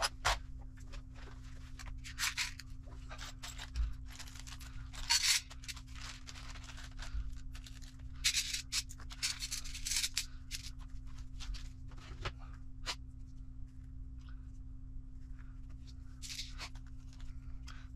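Hands handling RC kit parts: a plastic parts bag rustles and crinkles in repeated short bursts, and small parts click against a metal parts tray. A steady faint low hum runs underneath.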